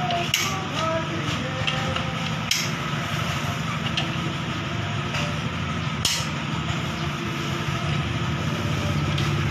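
Steady low mechanical hum throughout, with three sharp metallic clicks of a hand tool working around a motor scooter's radiator, spaced a couple of seconds apart.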